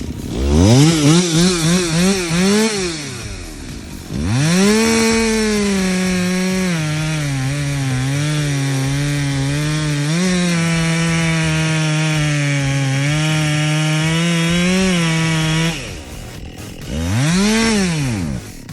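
Two-stroke chainsaw revved in a few quick blips, then held at full throttle for about eleven seconds while its freshly sharpened chain cuts through mulberry wood, the engine note dropping a little under the load. The saw is released, then gives one more short rev near the end.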